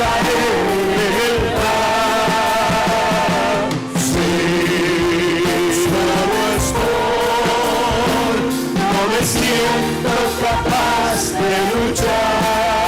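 Christian worship song performed with a band: a singing voice holding long, wavering notes over continuous instrumental accompaniment.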